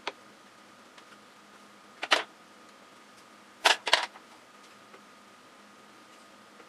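Sharp, short clicks or taps: one at the start, a quick pair about two seconds in, and a louder cluster of three near four seconds, over a faint steady hum.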